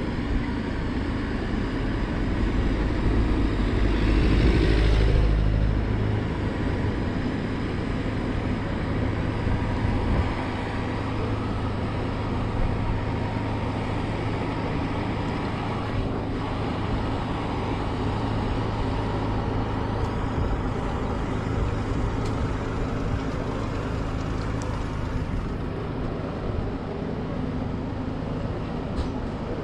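A motor vehicle's engine running steadily, with a louder low rumble swelling for a couple of seconds about four seconds in.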